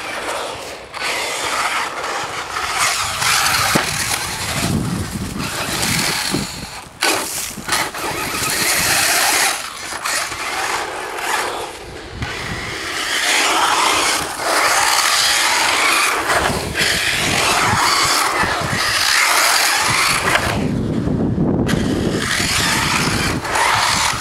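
Brushless electric RC cars driven hard on a gritty concrete pump track: motor whine and tyres scrabbling on the grit and dust. The sound swells and drops repeatedly as the cars are throttled through the dips.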